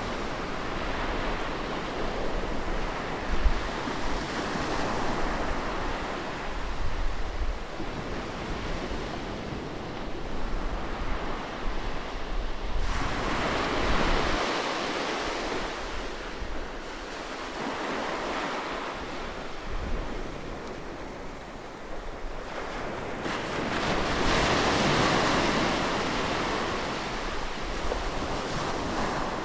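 Sea waves breaking and washing on a shore, a continuous surf wash that swells and ebbs, with a big surge about halfway through and another near the end, and some wind noise.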